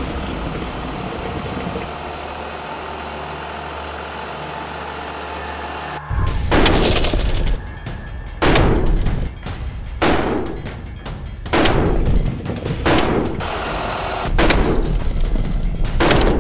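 SR25 semi-automatic 7.62 mm rifle firing single shots, about seven of them roughly a second and a half apart, starting about six seconds in. Before the first shot there is a steady low hum.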